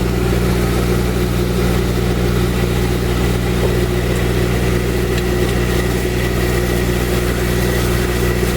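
Boat air conditioner's raw-water pump running with a steady hum and a faint high whine, now pumping water with the air burped out of its lines.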